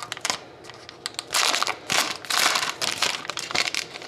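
A trading-card pack wrapper being torn open and crinkled by hand, in several short bursts of crackling, the loudest about a second and a half in and again around two and a half seconds.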